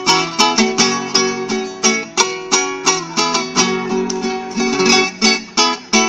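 Acoustic guitar played solo, a plucked melody of about four notes a second over lower bass notes, in the instrumental break between sung verses of a bolero.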